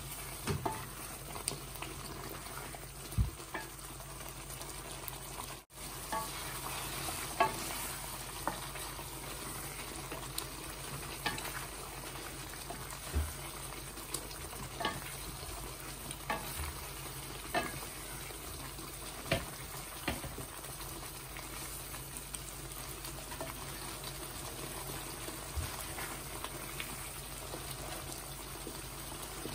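Chicken tikka pieces in a thick tomato masala gravy sizzling as they fry in a metal pan. A wooden spoon stirs them, knocking against the pan every second or two.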